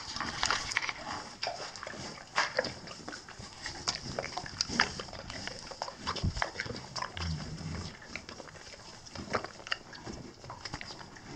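Foal's mouth smacking, licking and clicking irregularly as it works a dose of Pepto-Bismol around its tongue and lips. A brief low-pitched sound comes about seven seconds in.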